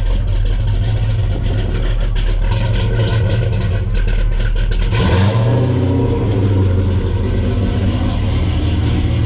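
A car engine running with a loud, steady low rumble; about five seconds in its pitch steps up, as if revved.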